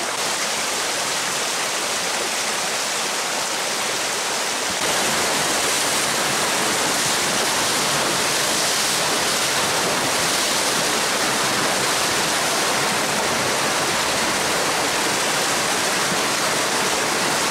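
Small mountain stream rushing over rocks. About five seconds in it turns louder and hissier: white water pouring through a corrugated metal culvert.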